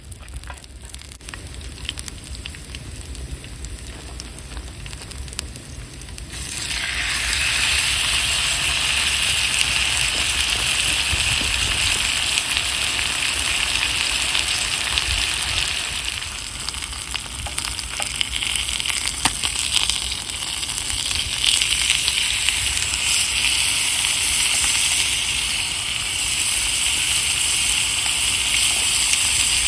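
Food sizzling in a hot pan, starting suddenly about six seconds in and then frying steadily.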